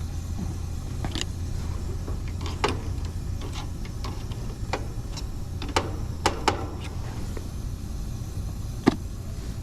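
Steady low hum of a running air-conditioner condensing unit, with scattered sharp clicks and knocks scattered through it.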